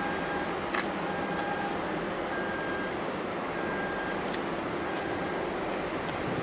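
Steady mechanical harbour drone of ship and port machinery, with a faint short beep repeating a little more than once a second and a few light clicks.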